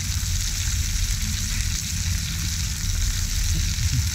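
Oil sizzling steadily in a frying pan as a whole mangrove jack fries with garlic cloves, over a steady low rumble.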